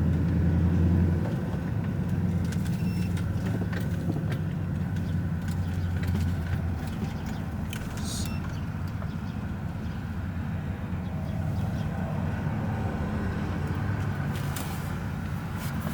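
A car running with a steady low engine hum, a little louder for the first second, with a few short clicks over it.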